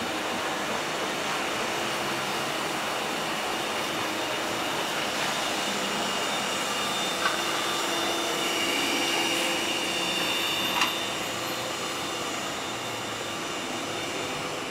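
Translohr STE6 rubber-tyred tram passing, its electric drive giving a steady whine over rolling noise, with two short sharp clicks about seven and eleven seconds in.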